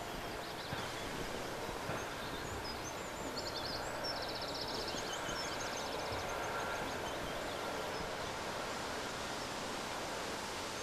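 Steady open-field ambience with small birds chirping and giving short rapid trills, most of them in the middle stretch.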